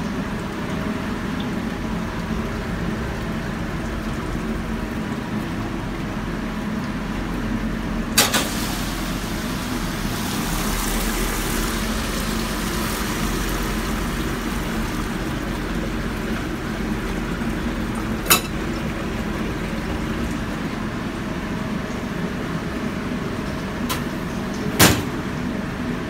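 Commercial Ecolab dishwasher running on, its wash pump humming and the main jets spraying water through the stainless tank in a steady rush, with three sharp knocks along the way. The machine is still washing after its cycle should have ended, a fault the uploader traced to a bad controller.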